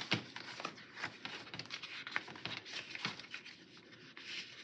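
Sticker book pages being flipped and handled: irregular paper rustling with light flicks and taps.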